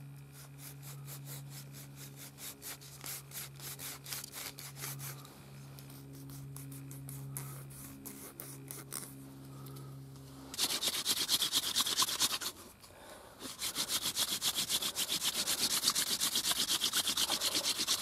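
Friction-fire drill: a wooden spindle spun hard in a charred fireboard socket, a fast, even run of rubbing strokes that starts about ten seconds in, breaks off briefly, and resumes.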